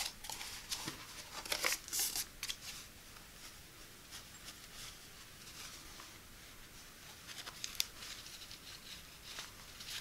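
Soft, scratchy rustles of hands gripping, turning and squeezing a memory-foam knee pillow in a knit fabric cover. The rustles are busiest in the first couple of seconds, fainter after that, with a few more scrapes near the end.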